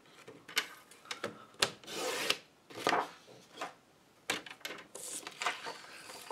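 Stampin' Up! paper trimmer cutting a sheet of designer paper: the blade carriage slides along its rail through the paper, with a longer scraping stretch about two seconds in. Around it come short clicks and rustling as the sheet is set in place and lifted off.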